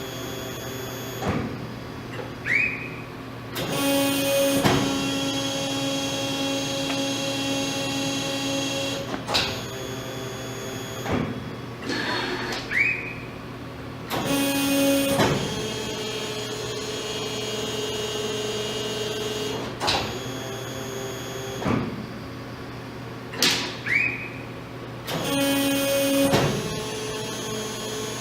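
Toyokoki HYB-175 hybrid electric-hydraulic press brake cycling, its AC servo motors driving the hydraulic pumps. A steady hum and whine carries clicks and knocks, with a short rising whine about every ten seconds as the servos speed up for each stroke.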